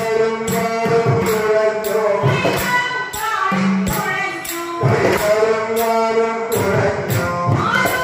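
Ottam thullal song: a woman's voice singing the verse in long held, bending notes over a steady percussion beat.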